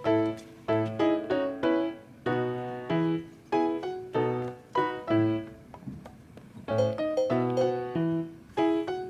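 Background piano music: chords and single notes struck in a steady, unhurried rhythm, each note dying away.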